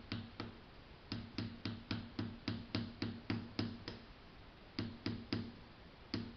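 Light hammer taps driving a multimeter probe's needle back into the probe, quick taps about four a second in runs broken by short pauses.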